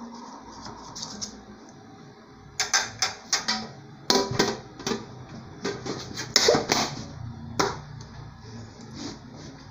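An aluminium tube pan and a round aluminium tray clanking and knocking together as the pan is covered with the tray and flipped over to unmould a pudding cake. There is a quick run of sharp metallic clacks from about two and a half seconds in until near the end, loudest about four and six and a half seconds in.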